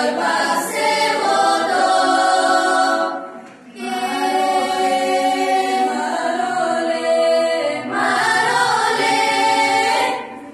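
Girls' folk choir singing a Bulgarian folk song a cappella in long held phrases of several voices together. There is a short pause for breath about three and a half seconds in, another near eight seconds, and the phrase ends just before the close.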